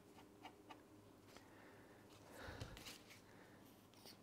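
Near silence: a faint low hum, a few faint small ticks, and a soft rustle about two and a half seconds in, from fingers packing walnut sawdust into a glued tear-out and handling a plastic glue bottle.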